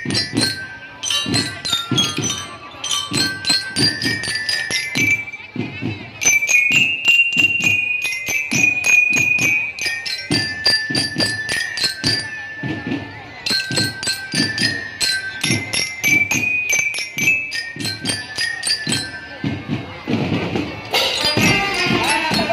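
Marching band bell lyres (glockenspiels) playing a ringing melody of struck notes over a steady drum beat. Near the end the music changes to a fuller, denser sound.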